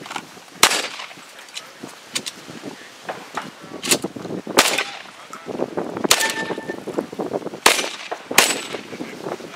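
Six loud gunshots at an irregular pace from a competition shooter's long gun, with a steel target ringing briefly after one shot about six seconds in.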